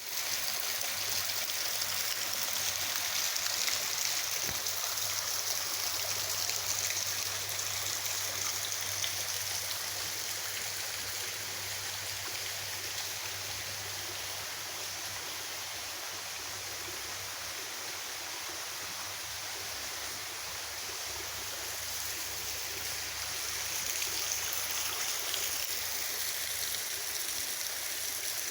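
Small waterfall: a steady rush and splash of falling water, a little louder in the first several seconds.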